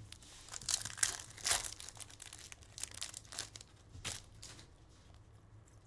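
Foil wrapper of a Topps Chrome baseball card pack crinkling and tearing as it is ripped open by hand: a run of sharp crackles that dies down near the end.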